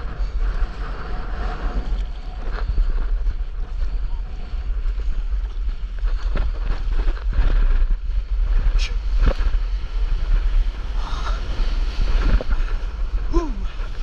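Stand-up paddleboard riding a wave: water rushing and splashing along the board, under a heavy rumble of wind on the microphone. The splashes are strongest in the second half.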